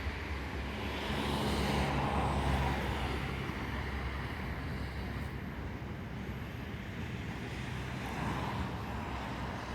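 Passing road traffic: a steady low rumble, with a vehicle swelling past about one to three seconds in and a smaller swell near the end.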